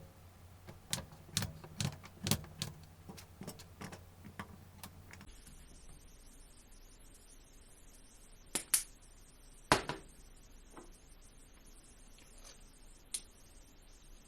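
Kitchen knife cutting against a cutting board in a quick run of sharp knocks, about two or three a second, over a low hum; after about five seconds the hum drops out and only a few separate knocks follow.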